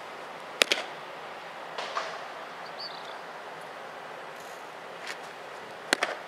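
A pitched baseball smacking into the catcher's leather mitt with a sharp pop about half a second in; another sharp double pop of a ball into a glove comes near the end, over a steady outdoor hiss.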